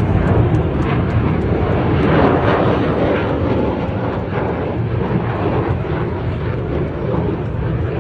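Jet aircraft flying past: loud, steady engine noise that swells slightly about two seconds in.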